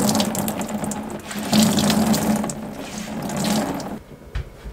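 Water wrung from a soaked towel splashing and trickling into a plastic bucket in three surges, the loudest about one and a half seconds in. The towel is full of water sponged up from the boat's bilge.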